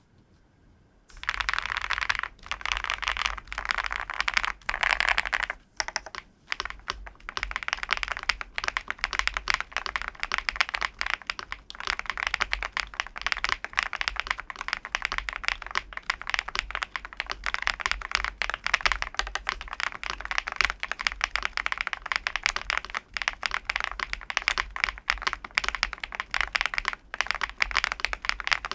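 MonsGeek M2 V5 VIA aluminium-cased mechanical keyboard being typed on in a fast, continuous run of keystrokes that starts about a second in.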